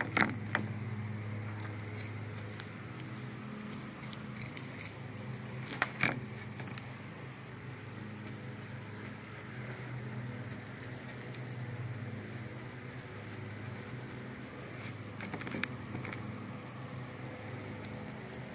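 Outdoor ambience of insects chirring steadily over a constant low hum, with a few short knocks and taps: one at the start, one about six seconds in and a couple near the end.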